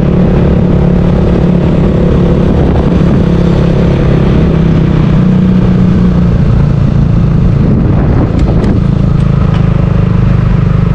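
Engine of the vehicle carrying the camera running steadily while driving along a road, its hum easing about six seconds in, with a few light clicks around eight to nine seconds.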